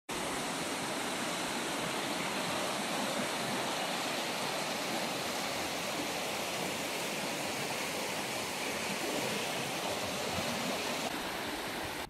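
River water rushing over a shallow, stony rapid: a steady, even rushing.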